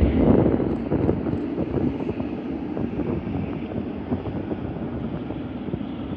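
Jet airliner engine noise from the runway, a broad low rumble that is loudest at the start and fades slowly, with wind buffeting the microphone.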